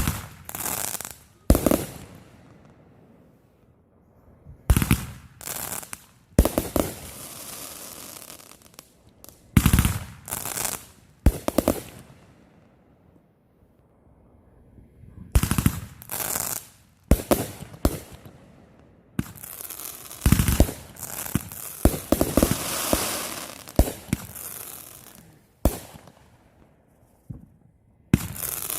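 Fireworks going off: a series of sharp bangs, each trailed by crackling, with a denser run of bangs and crackling about twenty seconds in.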